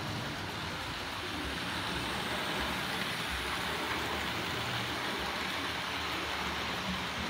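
Hornby R.842 LMS Class 5 00-scale model locomotive running with a rake of coaches over sectional track: the steady noise of its motor and wheels on the rails.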